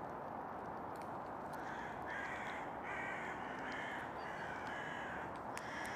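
Crows cawing repeatedly in a quick run of short calls, starting about a second and a half in, over a steady background hiss.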